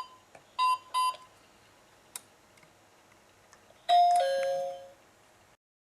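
Alarm system control panel sounding three short electronic beeps, then a click, then a two-note ding-dong chime stepping down in pitch that rings for about a second.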